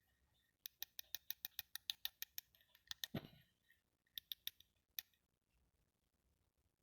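Small plastic toy pieces clicking: a quick run of sharp clicks, about six a second, then a soft low thump, then three more clicks and a last single one.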